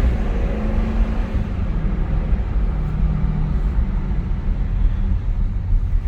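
Jeep Grand Cherokee's Hemi V8 running through an exhaust with the rear resonators cut out, a steady low drone while driving, over tyre and road noise. The engine is audible but not loud.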